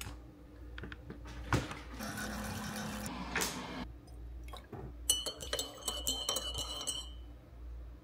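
Coffee being made: a single click of the pod coffee maker's button, about two seconds of pouring with a low hum, then a metal teaspoon clinking quickly against a ceramic mug as the coffee is stirred, for about two seconds, with a ringing tone.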